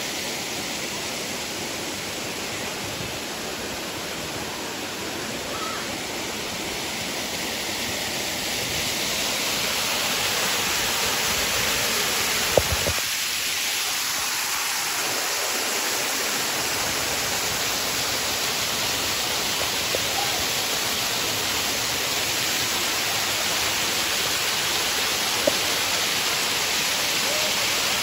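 Waterfall pouring over a rock ledge: a steady rush of falling water that grows louder over the first ten seconds or so, with a single sharp click about twelve seconds in.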